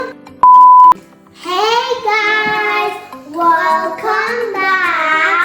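A single loud, steady beep lasting about half a second, then a child singing two phrases over background music.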